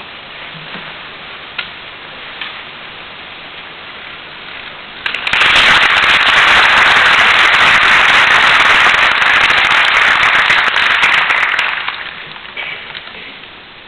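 Audience applause that breaks out about five seconds in, stays loud and dense for some six seconds, then dies away. Before it there is only quiet hall ambience with a few faint knocks.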